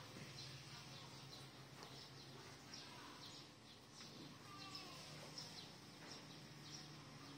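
Near silence: faint cattle-barn ambience with scattered faint high chirps and a low steady hum.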